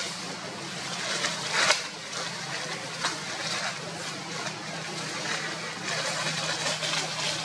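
Outdoor ambience: a steady low engine-like hum under a rustling, crackling haze, with a few sharper crackles as of dry leaves being disturbed, and faint voices.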